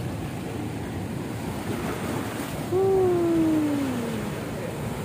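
Ocean surf washing steadily against a rocky shore. About three seconds in, a long tone slides down in pitch for about a second and a half, louder than the surf.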